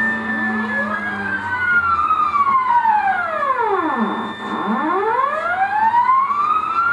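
Stepper motors of a PDJ CNC router driving a pen plotter along curved strokes, whining in several tones at once whose pitch glides down and back up as each axis slows, reverses and speeds up again. One sweep dips very low about four seconds in before climbing again.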